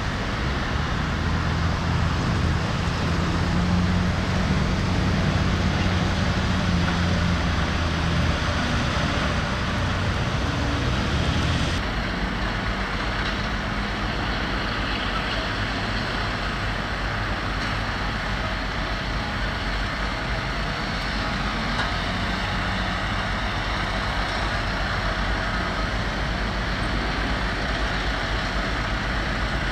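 Heavy diesel machinery engine running steadily with a deep hum. About twelve seconds in, the sound changes abruptly to a somewhat quieter engine note.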